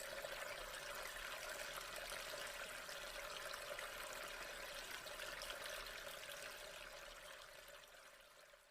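Waterfall sound effect: a steady rush of falling water that starts abruptly and slowly fades out near the end.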